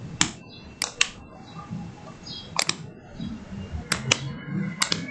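Computer mouse clicking, about six sharp clicks at irregular intervals, two of them in a quick pair about a second in.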